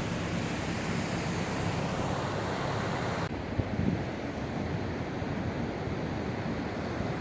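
Sea surf and wind on the microphone, a steady rushing noise; about three seconds in the high hiss drops away suddenly.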